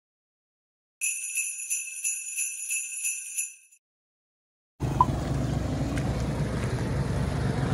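Jingling bells, shaken in a quick series of about eight jingles for some two and a half seconds about a second in. After a second of silence, a steady low rumble of roadside traffic begins.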